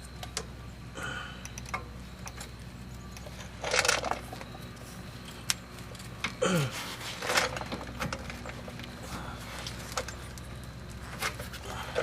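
Metal clinks and scrapes of hand tools and brake caliper hardware being handled: scattered sharp clicks, with two longer scrapes about four and seven seconds in.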